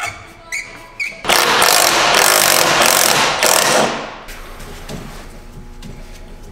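Cordless impact wrench on a subframe mounting stud of a car body: a few short trigger blips, then a loud run of rapid hammering that lasts about two and a half seconds and stops.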